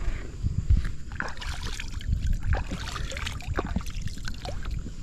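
Scattered knocks, taps and rustling of gear being handled on a small boat's hull and carpeted floor, over a steady low rumble of handling noise.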